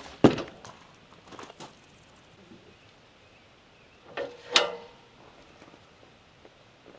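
Wooden knocks and thuds as a cedar log and a wooden pole are shifted on a portable sawmill's bed. There is a sharp knock just after the start, a few faint knocks about a second and a half in, and two louder knocks close together at about four and a half seconds.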